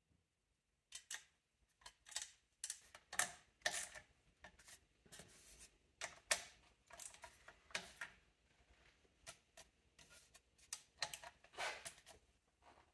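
Viscous fan clutch and plastic engine fan being handled and turned by hand while fitted: irregular light clicks, taps and short scrapes, beginning about a second in.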